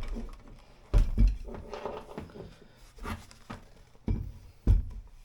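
Metal accessories and tools being set down and handled on a workbench: a series of knocks and clatters, the heaviest thuds about a second in and again near four and five seconds in.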